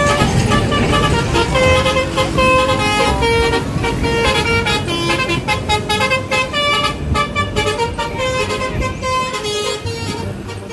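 Bus telolet horn (Basuri melody horn) playing a quick tune of short notes that step up and down in pitch. It is loud and runs on throughout, easing off slightly near the end.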